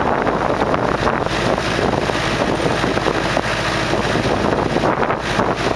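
Burning prairie grass in a controlled burn: the flame front gives a loud, dense, steady crackling rush, with a tractor engine running close by underneath it.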